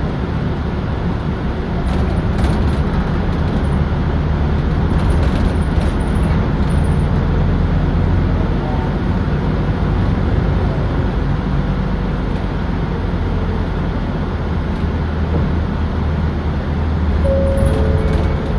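Inside a 2007 Nissan Diesel Space Runner RP city bus under way: its diesel engine and road noise run as a steady rumble through the cabin. A short falling two-note tone sounds near the end.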